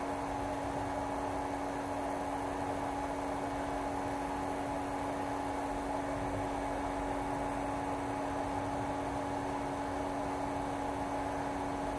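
Steady electrical hum with a couple of constant tones over an even hiss, unchanging throughout.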